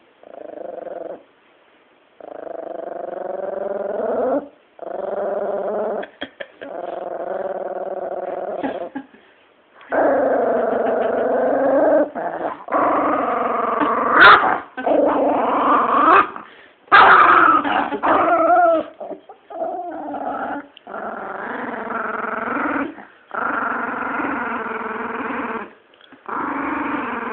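A chihuahua growling in a string of long growls, each lasting several seconds with brief pauses for breath, rising to louder, sharper snarls about halfway through. She is guarding her bone from a hand trying to take it.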